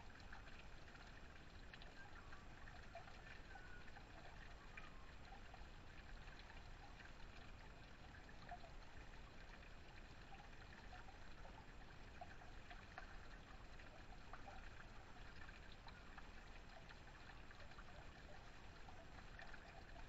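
Faint, steady trickling and splashing of a small backyard waterfall, water spilling off a metal spillway lip onto stone.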